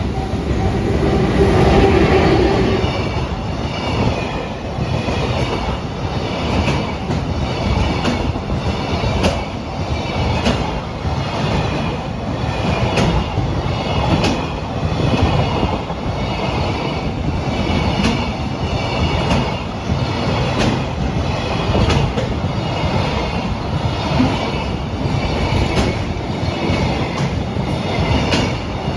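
A freight train hauled by an EF210 electric locomotive rolling past, its wagon wheels clicking over the rail joints in a steady rhythm of about one click a second, with a high metallic shimmer from the wheels on the rails. A steady tone fades out in the first three seconds.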